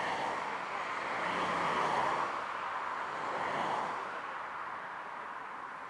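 Airbus A380's four turbofan engines on final approach: a steady rushing jet noise that swells to its loudest about two seconds in, stays up until just before four seconds, then slowly fades.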